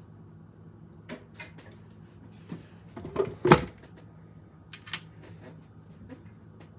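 Kitchen handling sounds: a series of knocks and clunks, the loudest about three and a half seconds in, over a faint steady low hum.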